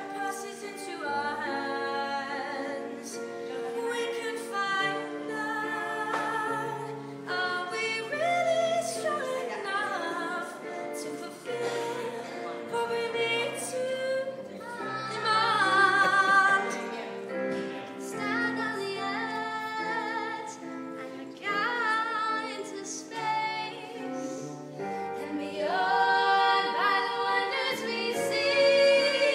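Music with a woman singing, holding long wavering notes over a steady accompaniment.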